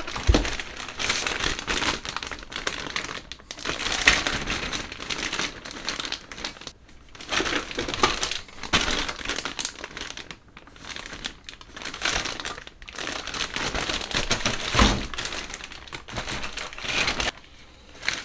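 Clear plastic bags holding plastic model-kit sprues crinkling and rustling in irregular bursts as they are handled, with a dull thump right at the start and another about fifteen seconds in.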